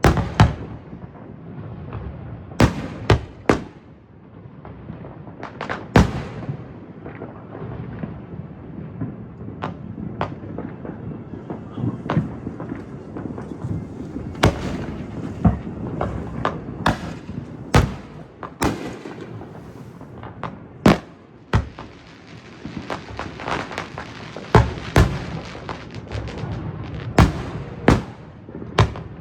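Fireworks display: a string of sharp, loud bangs at uneven intervals, over a dozen in all, with a continual crackling and rumbling between them.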